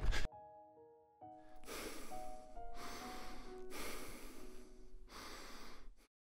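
A person breathing slowly and heavily, several long audible breaths in and out, over soft sustained musical notes.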